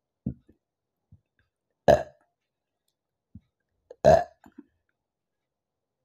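A woman burping loudly twice, about two seconds apart, after drinking a fizzy apple soda, with a few short, soft throat sounds around the burps.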